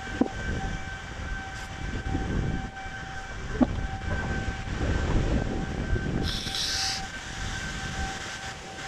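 Wind gusting on the microphone, with a steady high tone held underneath and a short hiss about six and a half seconds in.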